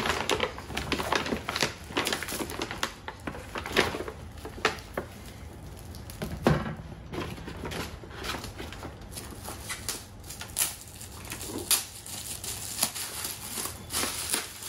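Paper gift bag and shiny gift-wrapping paper rustling and crinkling as presents are unwrapped by hand, in an irregular run of crackles and rustles.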